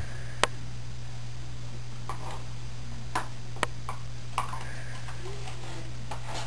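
Four sharp clicks over a steady low hum; the first click, about half a second in, is the loudest.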